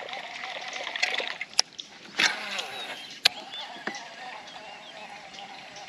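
Casting from a kayak toward bank cover: two sharp clicks of the fishing tackle with a short rush of noise between them, over a faint waterside background with chirping.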